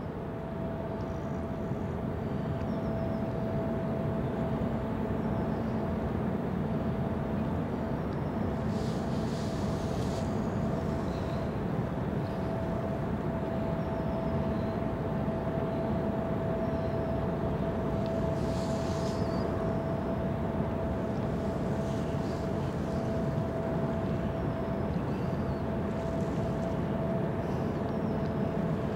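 A Fred Olsen cruise ship's engines and on-board machinery giving a steady low rumble with a constant mid-pitched hum as she moves slowly into port.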